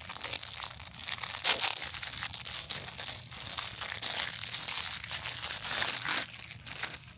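Clear plastic wrapping crinkling and crackling as hands peel it off a roll of repair tape, a dense run of crackles that dies away near the end.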